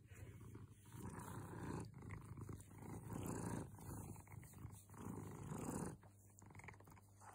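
A content tabby cat purring close up, the purr swelling and fading with each breath about once a second; it stops about six seconds in.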